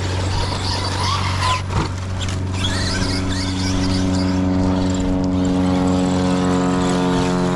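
An engine running steadily with a pitched drone that becomes more distinct about three seconds in, and a couple of brief knocks about one and a half seconds in.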